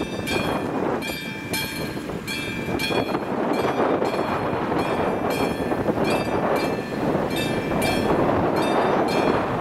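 Railway level-crossing electronic warning bell ringing, a regular ding about one and a half times a second, sounding with the flashing red lights: the signal that the crossing has activated for an approaching train. Steady wind noise on the microphone underneath.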